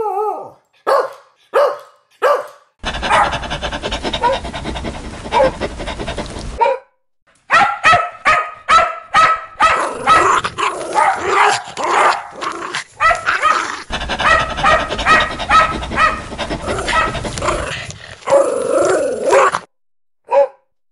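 Dog barking: a few single barks, then long runs of rapid, loud barking, spliced together with abrupt cuts and a short break about seven seconds in.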